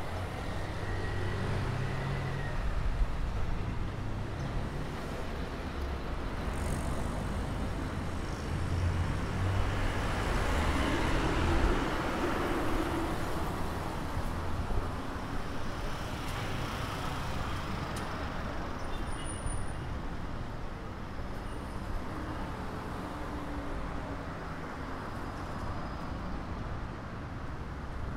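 Street traffic: car engines running and tyres on the road as vehicles pass, with one louder pass about ten seconds in.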